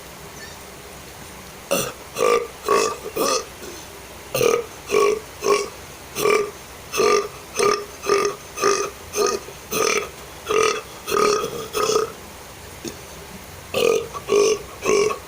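A man burping on purpose in a quick run of short burps, about two a second, done to imitate a pig's voice. The run starts about two seconds in, breaks off briefly near the end and then resumes.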